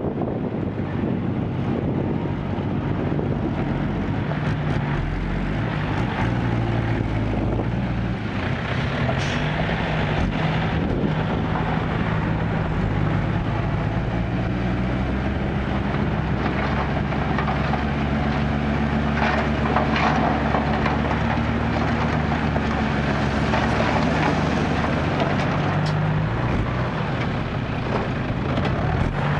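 Diesel engine of an old six-wheel dump truck running as it pulls up and stops, then held at steady revs while the hydraulic hoist tips the loaded bed; the dirt load starts sliding out near the end.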